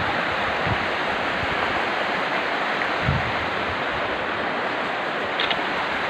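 Steady rushing of shallow river water, with a couple of brief low bumps.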